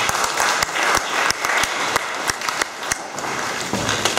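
Audience applauding, many hands clapping, dying down near the end.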